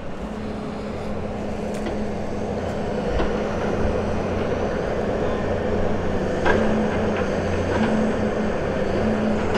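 Diesel engine of a Tigercat 234 log loader running steadily and working harder as it swings a log onto a log truck's trailer, with a few faint knocks.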